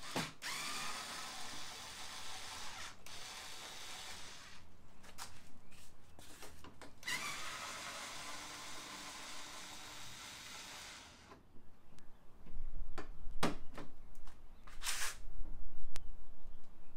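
A cheap cordless electric screwdriver runs in two spells of about four seconds each, each opening with a brief rising whine as it spins up. It is winding out the Phillips-head centres of the plastic push clips that hold a car's grille panel. Near the end come several sharp clicks and knocks as the clips and panel are handled.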